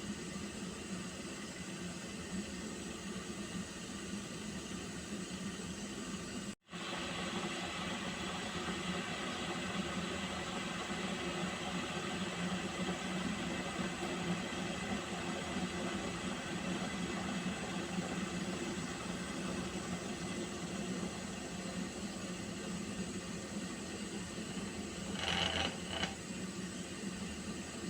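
Water heating in a pot toward the boil: a steady hiss with a low hum. The sound cuts out for an instant about seven seconds in, and a brief louder crackle comes about twenty-five seconds in.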